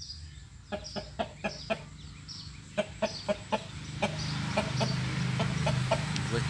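Fighting cocks in wire cages clucking, with a run of short sharp taps. A low steady hum comes in about four seconds in.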